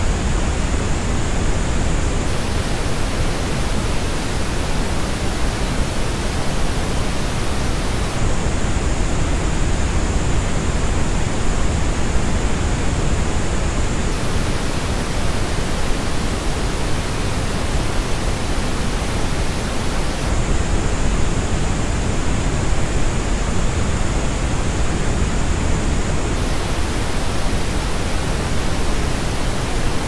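Pink noise test signal, switching about every six seconds between the Dyson OnTrac headphones' measured response, with a bump in the upper treble and the highest treble missing, and the flat, full-range original reference noise. The headphone version plays from the start to about two seconds in, again in the middle, and again near the end.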